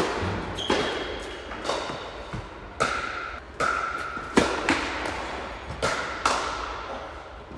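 Tennis ball being struck by rackets and bouncing on the court during a rally: about nine sharp, echoing hits and bounces, coming at irregular intervals about half a second to a second apart.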